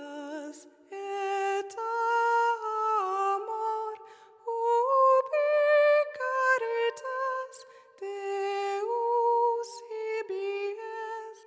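Music: a lone high voice singing a slow, gentle melody with no accompaniment, in short phrases of held notes with slides between them.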